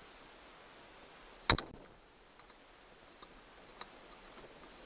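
A sharp metallic click about a second and a half in, followed by a few faint ticks: snap ring pliers working a circlip off a pivot pin on a trolling motor's plastic mount.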